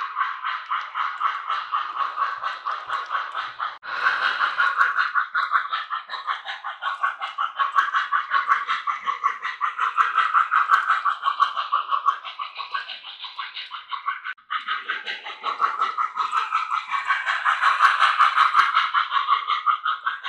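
Model steam locomotive's electronic sound system chuffing in a rapid, even rhythm as the MTH Premier Strasburg #98 4-4-0 runs at speed with its passenger cars. The rhythm breaks off very briefly twice, about four seconds in and about two-thirds of the way through.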